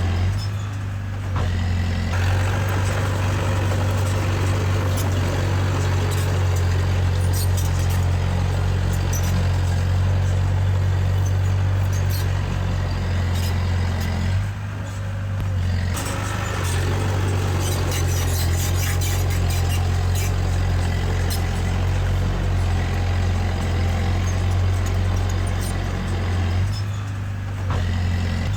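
Diesel engine of heavy earthmoving machinery running steadily under load, with clanking and rattling on top. The working noise drops away briefly about halfway through and again near the end, leaving mostly the engine's low drone.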